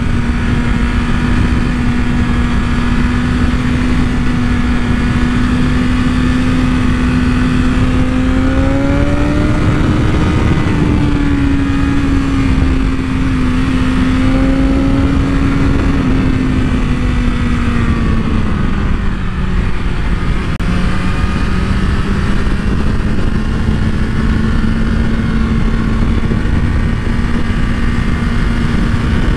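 Sport bike engine running at a steady cruise under heavy wind rush on the microphone. Its pitch rises a little about a third of the way in, drops lower about two-thirds in, then climbs back.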